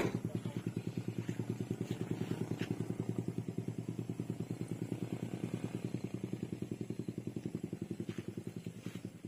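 Truck engine running steadily, a rapid even pulsing with a sharp click right at the start.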